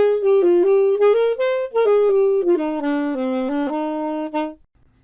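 A short solo instrumental tune: a single melody line of quick separate notes that works its way down in pitch and stops about four and a half seconds in.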